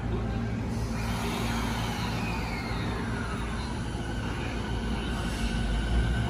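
Electric commuter train pulling away from the platform: a steady low hum of motors and equipment, with a high whine that starts about a second in and glides downward over the next couple of seconds as it gets moving.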